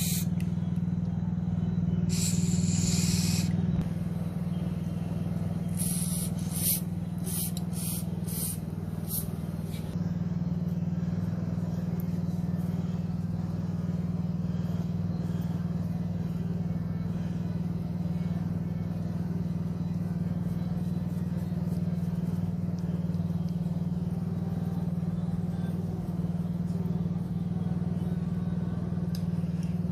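Small single-cylinder gasoline engine, the snowblower's Briggs & Stratton 163cc, running steadily. Several short hissing sounds come in the first ten seconds or so.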